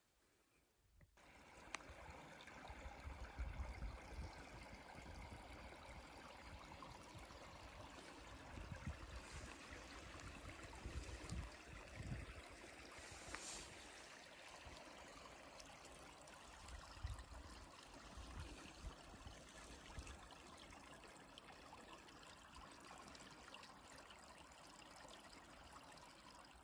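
Faint, steady rush of running water from a small stream, with occasional low rumbles.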